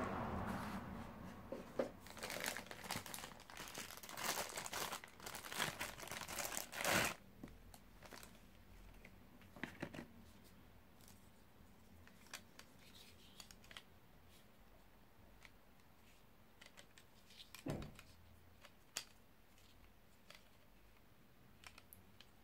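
Thin plastic packaging crinkling and rustling as it is handled and pulled open, busiest in the first seven seconds. After that, quieter handling with a few short clicks and one small knock of plastic parts.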